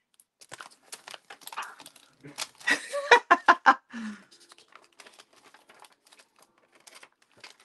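Clear plastic stamp sheets crinkling and clicking as they are handled, with irregular small crackles throughout. A short, low vocal sound, like a brief laugh, comes about three seconds in.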